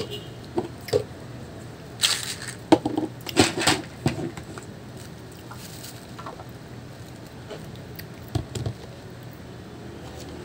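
Juicy pomelo pulp being eaten: wet squishing and crackling of the fibrous segments. There are a few sounds in the first second, a dense cluster from about two to four seconds in, and a short burst near the end.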